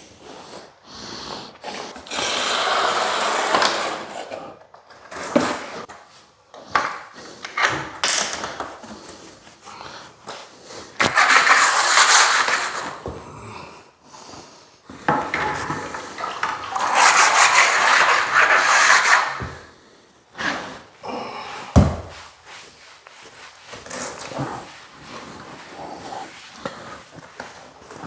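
Tile-setting hand work: three long scraping strokes of two to three seconds each, with scattered clicks and knocks between them and one sharper knock about two-thirds of the way through.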